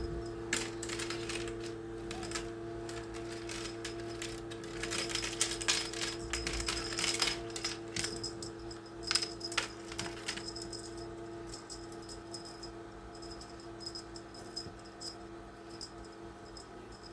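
Light metallic jingling and clicking, irregular and busiest in the first ten seconds, over a steady low hum.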